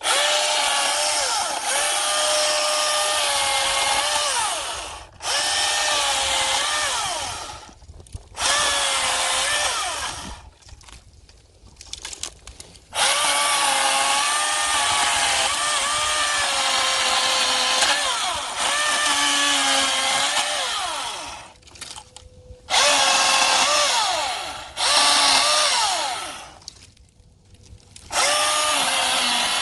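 Milwaukee M18 FUEL 16-inch battery chainsaw running in repeated bursts of a few seconds, stopping briefly between them. Its electric-motor whine dips in pitch as the chain bites into the wood and rises again as it clears the cut.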